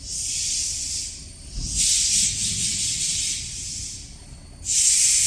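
Three bursts of high-pitched hissing: one lasting about a second at the start, a longer one in the middle, and a short, louder one near the end.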